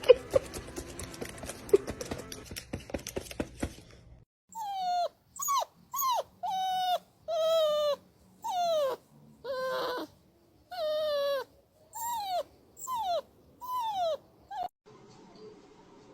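Clicking and rustling for the first four seconds, then a dog whining in about a dozen short, separate calls that each fall in pitch.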